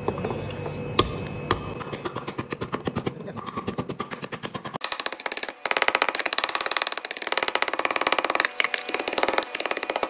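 A small hammer chipping at a block of ice in a plastic bin, many quick sharp knocks breaking up the ice around a frozen padlock. The knocks come sparsely at first, then turn rapid and louder about five seconds in.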